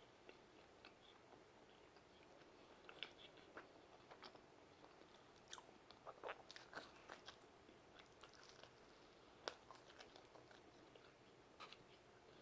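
Faint chewing of a mouthful of pizza: scattered soft mouth clicks and smacks, busiest around the middle, with one sharper click about three-quarters of the way through.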